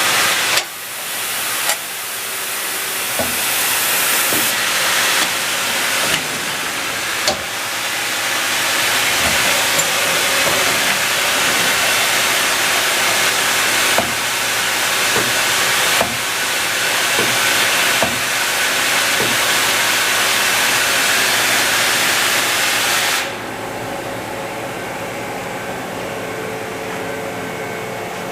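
Hyundai Wia LM1800TTSY CNC turning center running with a loud, steady hiss and sharp clicks every second or two. The hiss cuts off suddenly near the end, leaving a quieter, steady machine hum.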